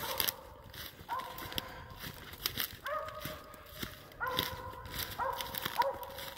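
A squirrel dog barking treed: four drawn-out, evenly pitched barks, each held for up to a second, with footsteps crunching through dry fallen leaves between them.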